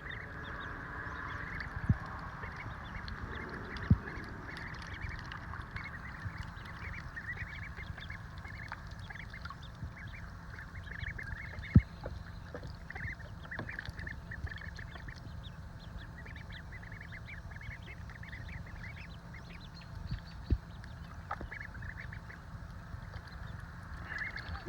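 A group of ducklings peeping continually, many short high calls overlapping, over a steady low rumble. A few sharp knocks stand out about 2, 4, 12 and 20 seconds in.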